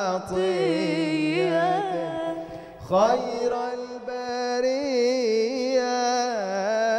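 A male voice singing an Arabic religious praise song (inshad) in long, melismatic phrases with wavering ornaments. The first phrase ends about two and a half seconds in, and after a short breath a second long ornamented phrase is held through to the end.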